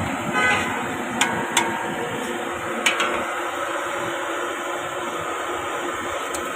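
Metal frying skimmer clinking against the wok and an aluminium colander as fried banana chips are scooped out and tipped in: a short rattle near the start, then three sharp clinks within the first three seconds. A steady hiss runs underneath.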